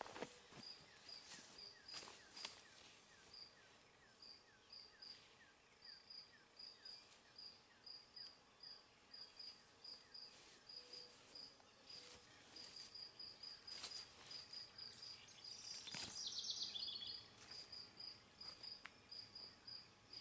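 Faint, steady insect chirping outdoors: short high-pitched chirps repeating about two to three times a second. A few soft rustles and clicks come and go, with a louder rustle about sixteen seconds in.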